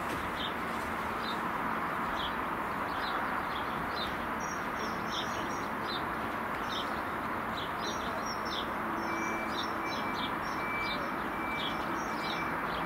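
Small birds chirping repeatedly over a steady background rush. A faint, thin steady tone comes in about two-thirds of the way through.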